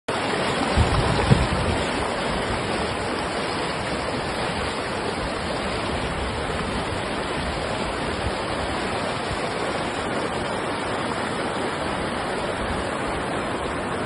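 Fast-flowing snowmelt mountain stream rushing over rocks: a steady, dense rush of water. A few low thumps come about a second in.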